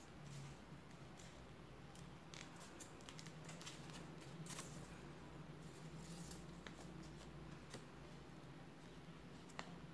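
Faint crackling and rustling of a sheet of paper being folded and creased by hand, in scattered short clicks over a low steady hum.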